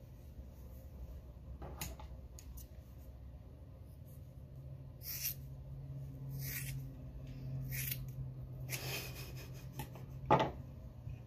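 Scissors cutting through thick curly hair: a few separate crunching snips a second or so apart, then a longer rasping cut. A sharp knock comes near the end and is the loudest sound.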